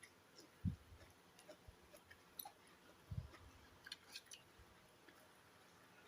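Faint eating sounds: quiet chewing with scattered small clicks, and two soft low thumps, about a second in and about three seconds in.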